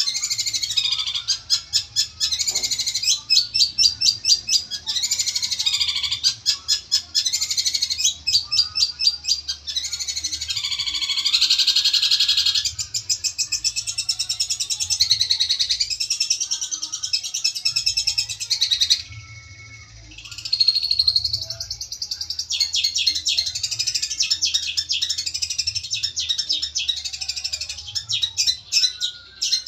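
Long-tailed shrike (cendet) singing a long, fast, chattering song of rapidly repeated high notes and mimicked phrases, with a short pause about two-thirds through. It is a challenge song calling out a rival shrike.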